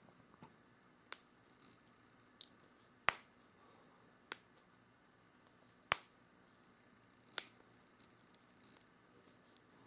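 A person's joints cracking: a series of sharp, separate pops, about seven in all and roughly one every second or so, the loudest about three seconds in.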